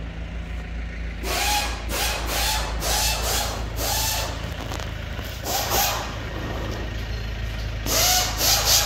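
A forklift engine idling with a steady low hum, under a series of short, sharp air hisses. The hisses come in a quick run about a second in, once more near six seconds, and loudest in a group near the end.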